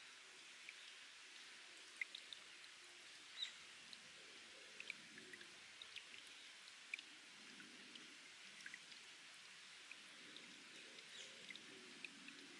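Faint trickle of spring water seeping from rock, with scattered drops falling in short, high-pitched plinks, the loudest about two, three and a half and seven seconds in.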